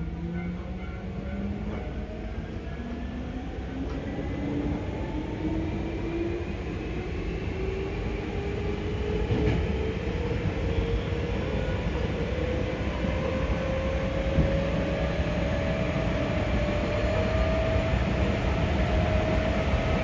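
Hankyu 5300 series train's resistance-controlled DC traction motors whining, the whine rising steadily in pitch as the train accelerates, heard from inside the passenger car. Underneath is the rumble of wheels on rail, growing louder as speed builds.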